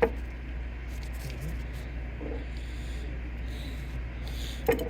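Two sharp knocks, one at the start and one near the end, made by parts or tools being handled during printer reassembly, over a steady low hum.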